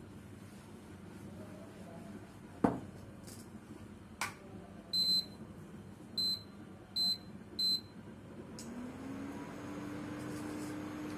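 A metal kadai set down with a knock on an induction cooktop, then four short high beeps as the cooktop's touch buttons are pressed. About two seconds later the cooktop starts heating with a hum that rises briefly and settles into a steady tone.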